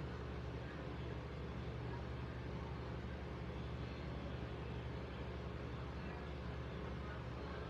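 Steady low hum with a faint even hiss over it, unchanging throughout.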